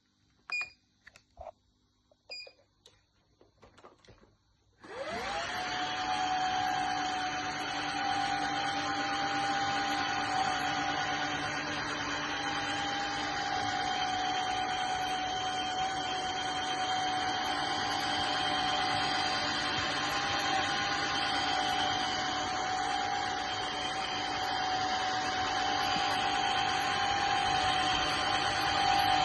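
Xiaomi Truclean W20 wet-dry vacuum being switched on: a few clicks and short beeps, then about five seconds in the motor spins up with a rising whine. It then runs steadily with a whine over a loud hiss.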